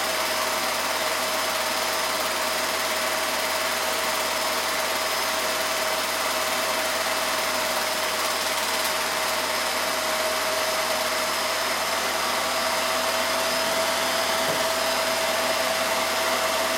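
Film projector running: a steady motor-and-fan whir with a constant hum.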